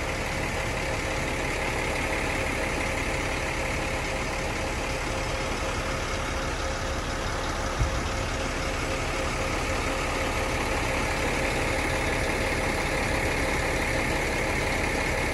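Truck-mounted concrete pump-mixer (a Pumi) running steadily while pumping concrete, with one brief thump about eight seconds in.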